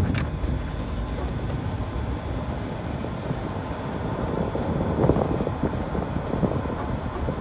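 Pickup truck on the move: a steady low rumble of road noise with scattered light knocks and rattles.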